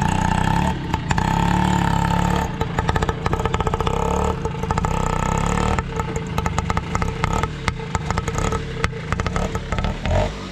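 Small engine of an auto-rickshaw (three-wheeler) running close by, with a fast, steady pulsing beat. It eases slightly about six seconds in.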